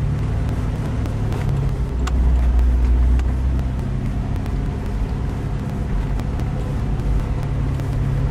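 Four-wheel-drive Jeep's engine pulling up a very steep grade, heard from inside the cabin: a steady low drone that swells louder between about two and three and a half seconds in, with occasional light clicks and rattles.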